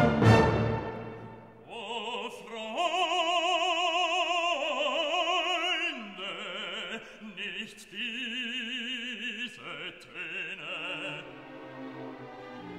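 Background music: an operatic singing voice holds long notes with strong vibrato over a soft orchestral accompaniment, after a full orchestral chord dies away in the first second.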